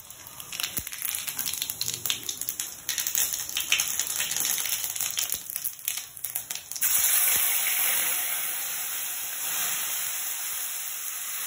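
Seeds crackling and popping in hot oil in a kadai. About seven seconds in, chopped tomato, onion and coriander are tipped in, setting off a loud, steady frying sizzle that slowly eases.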